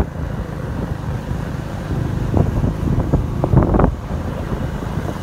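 Wind buffeting the microphone: a steady low rumble with a few short, faint sounds in the middle.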